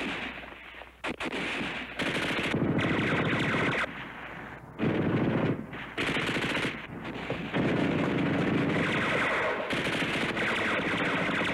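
Belt-fed machine gun firing in long, rapid bursts with short gaps between them. The firing starts about two seconds in and becomes near-continuous toward the end.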